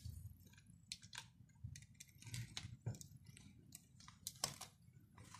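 Faint, irregular small clicks and rustling as the Nikon D7000's top cover is worked loose and lifted off the camera body by gloved hands, with a closer pair of clicks near the end.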